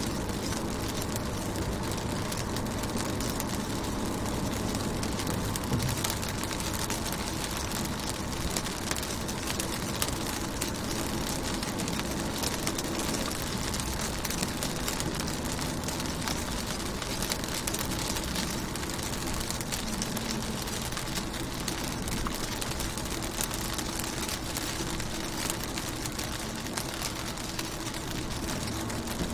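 Steady rain with raindrops ticking on a car window, over a constant low hum.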